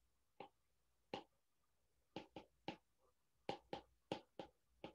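Faint ticks of a stylus tip tapping on a tablet's glass screen while handwriting, about ten irregular clicks.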